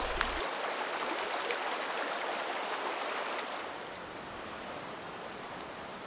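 Estéron river water flowing: a steady rushing hiss, a little softer from about halfway through.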